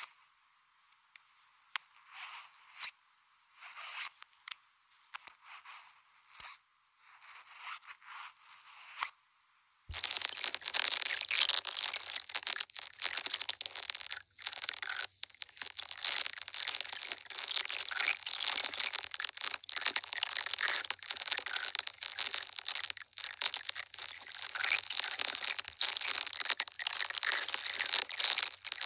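Close-miked ASMR sounds of makeup products being handled and applied: short scratchy rustles at first, then about a third of the way in an abrupt switch to dense, continuous crackling and tapping with a faint low hum beneath it.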